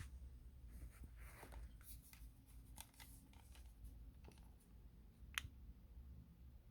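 Near silence: low room hum with a few faint rustles and clicks, and one sharper click about five seconds in.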